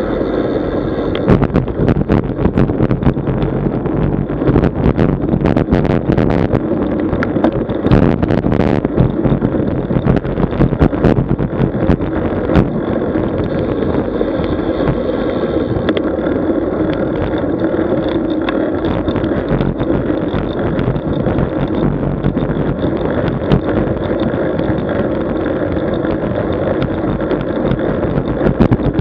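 Wind rushing over the microphone of a camera on a moving road bike, with steady road noise and scattered clicks and knocks through roughly the first dozen seconds.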